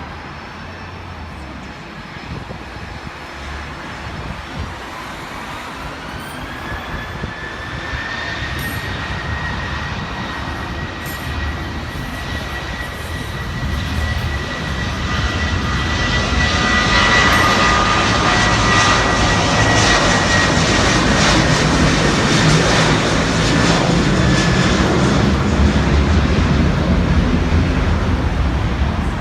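Jet airliner's engines spooling up for takeoff: a whine rises in pitch and then holds steady while the engine noise grows louder over about ten seconds and stays loud.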